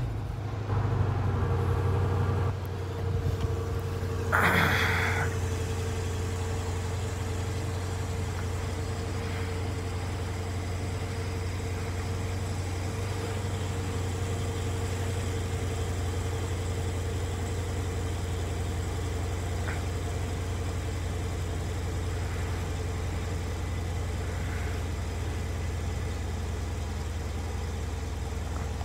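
Chrysler 300 SRT8's 6.4-litre HEMI V8, remote-started cold and heard at the exhaust tips: it catches, runs at a raised fast idle for about two seconds, then settles into a steady low idle. A short loud noise about four seconds in.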